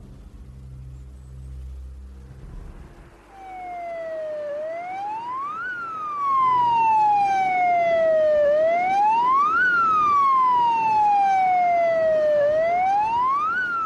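Ambulance siren wailing, each cycle a quick rise in pitch followed by a slow fall, repeating about every four seconds. It comes in about three seconds in and gets louder about six seconds in.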